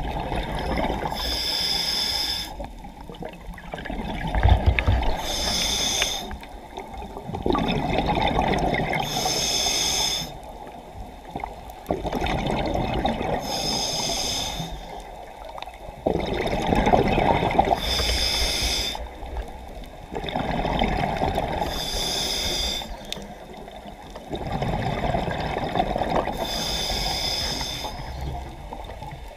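Scuba diver breathing through a regulator underwater: a short hissing inhale, then a longer rush of exhaled bubbles, repeating about every four seconds, seven breaths in all.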